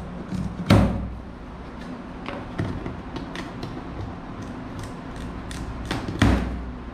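Unboxing of a bicycle's cardboard shipping box: scattered light clicks and rustles of packaging being handled, with two loud thuds, one about a second in and one near the end.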